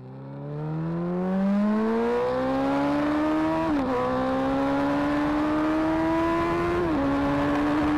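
Suzuki Hayabusa GSX1300R's 1340cc inline-four engine accelerating hard, its pitch climbing steadily. There are two upshifts, one about halfway through and one near the end, where the pitch dips briefly before climbing again.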